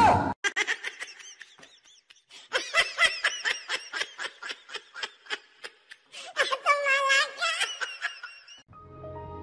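A person laughing hard off-camera in quick repeated bursts, rising into a higher, drawn-out laugh about six and a half seconds in. It cuts off near the end as background music comes in.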